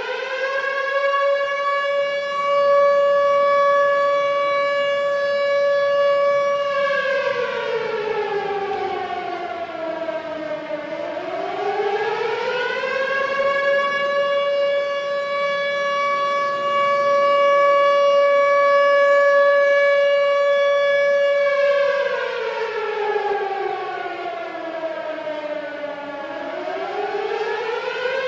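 Mechanical civil defense siren with several long horns, sounding a loud steady wail. Twice its pitch slides down over a few seconds and then winds back up to the held tone.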